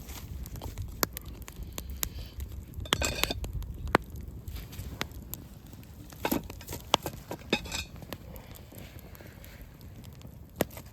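Campfire crackling, with sharp pops scattered irregularly throughout. Two short rustling noises come about three seconds in and again near eight seconds.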